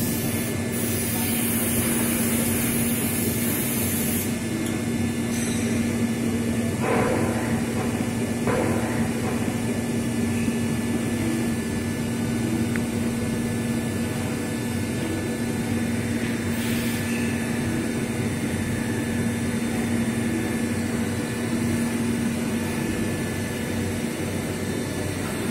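Steady hum of machine-shop machinery with a constant low drone. A loud hiss runs for a few seconds near the start, and two brief knocks come about seven and eight and a half seconds in.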